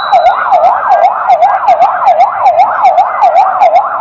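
Electronic siren in a fast yelp, its pitch sweeping up and down about three times a second, steady and loud.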